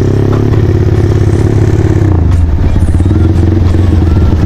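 Motorcycle engine and exhaust running loud under way, then the throttle is closed about two seconds in and the note drops to a lower, pulsing exhaust sound as the bike slows.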